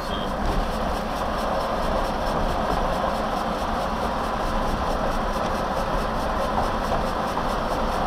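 Steady road noise and engine hum heard inside the cabin of a moving vehicle.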